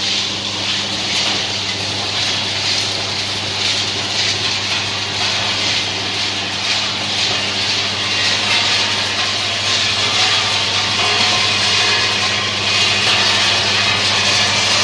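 Rotary sand-sieving drum machine running steadily, its electric motor and worm gearbox giving a constant hum under a dense hiss.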